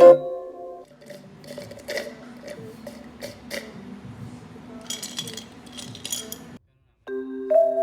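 Irregular light clinks and taps over a low steady hum, then soft music comes back in near the end.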